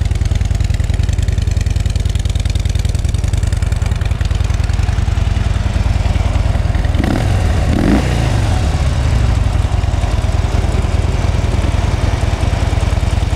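2016 Harley-Davidson Dyna Street Bob's 103 V-twin idling steadily through its stock factory exhaust. About seven seconds in it gives one quick blip of the throttle, rising and falling back to idle.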